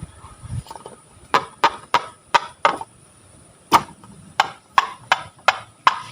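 Slime being worked by hand, giving a series of sharp crunching clicks: five in quick succession, a short pause, then six more.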